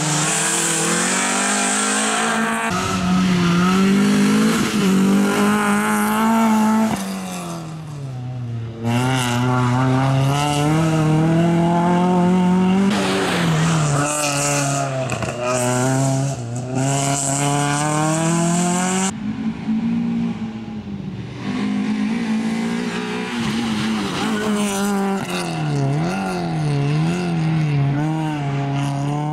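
Peugeot 306 rally car's engine revving hard, its pitch climbing and dropping again and again as the car brakes, shifts and accelerates through a tyre chicane and tight turns, with tyres squealing.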